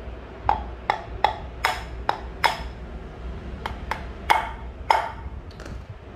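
A hammer with a red plastic head taps a rusted, jammed spindle out of a Royal Enfield Bullet Electra 350's front drum brake backing plate. There are about ten sharp knocks, each with a short ring, in a quick run with a pause near the middle.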